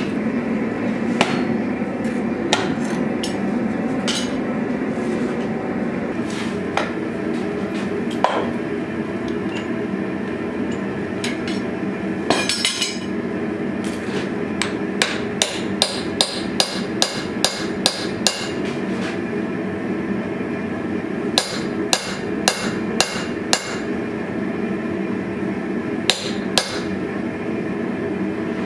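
Hand hammer striking a hand-held punch set on a red-hot steel bar on an anvil: ringing metal blows, scattered at first, then in quick runs of about two a second. A steady hum of shop noise runs underneath.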